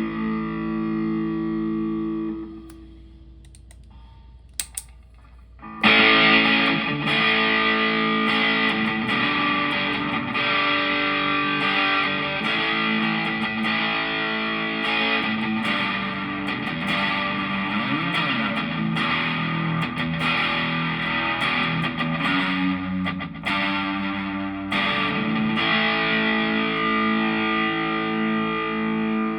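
Distorted electric guitar played through the Tank-G hybrid effects setup. A held chord rings and cuts off about two and a half seconds in, with a couple of faint clicks in the short gap. About six seconds in, playing resumes loudly with strummed, ringing chords and riffs.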